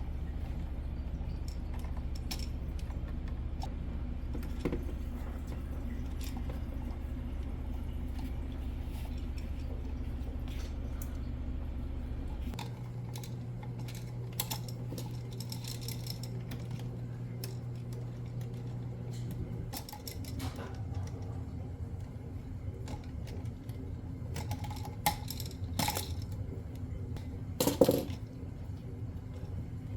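Scattered small metal clicks and clinks from handling wires, screws and hand tools while wiring an outlet, with a louder clatter near the end. Under them runs a steady low hum that shifts abruptly about twelve seconds in and again near twenty.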